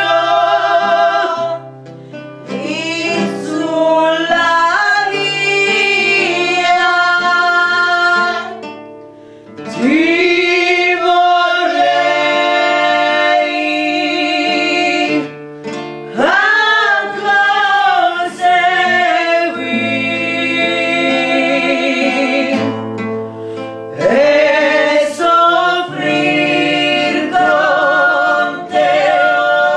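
A hymn sung over a guitar accompaniment. Long held notes with vibrato, with short breaks between phrases.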